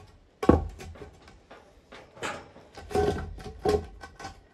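Round wooden roof poles knocking and scraping against the concrete beams as they are shifted into place. There are several knocks, each with a brief hollow ring, and the heaviest comes about half a second in.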